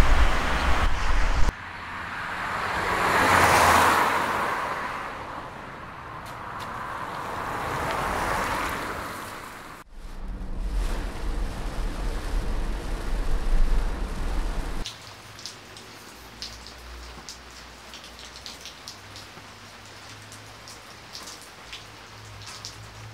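Two cars passing one after the other, each swelling and fading away, then a louder stretch with a deep rumble, and from about two thirds of the way in, light rain falling steadily.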